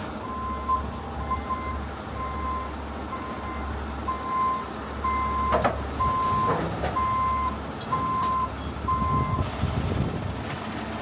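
Heavy rotator tow truck's reverse alarm beeping about once a second over its diesel engine running low as the truck backs up a steep dirt slope; the beeping stops about nine seconds in. A couple of sharp knocks come midway.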